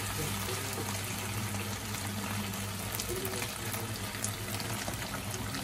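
Fried chicken pieces sizzling in a honey sauce in a frying pan, a steady hiss, while a spatula stirs them.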